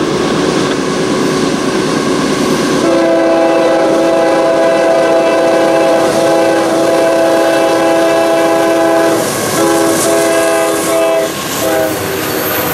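A CSX freight locomotive sounds its air horn over the rumble of the approaching train. One long blast starts about three seconds in, breaks briefly about six seconds later and resumes, then ends with a couple of short toots near the end.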